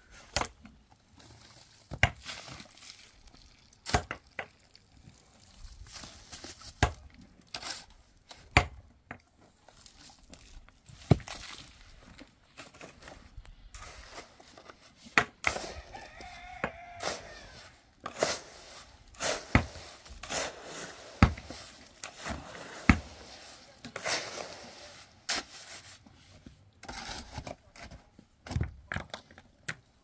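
Sharp knocks struck at irregular intervals of one to three seconds, with rustling and crinkling noise in between.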